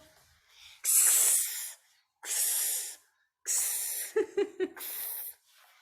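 A woman voicing a hissing phonics sound: three long hisses, then a run of quick, shorter ones. It is most likely the /ks/ sound of the letter x, said between 'y' and 'ch'.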